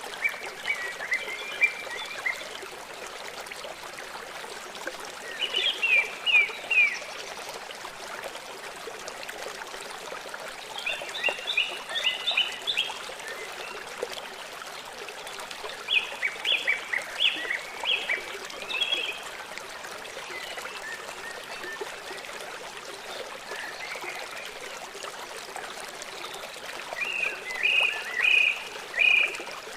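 Stream running steadily, with a small bird singing short phrases of quick high notes every few seconds.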